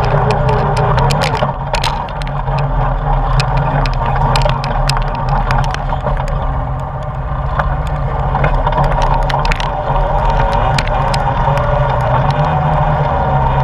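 ATV engine running steadily while riding, with stones and gravel clicking and rattling under the tyres throughout.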